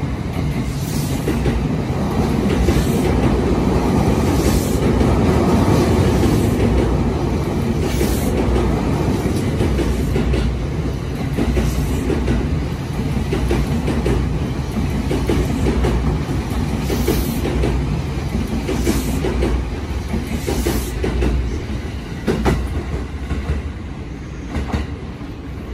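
JR East E259-series Narita Express passing through the station without stopping. Its wheels clack over the rail joints again and again; it is loudest about five seconds in and fades slowly toward the end.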